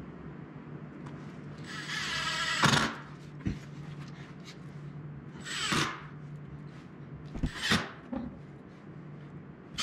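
A cordless drill whirs briefly about two seconds in, driving a screw into a metal drawer slide, and stops with a click. Then a steel ball-bearing drawer slide is run out and back a few times, each short rolling rush ending in a metallic clack.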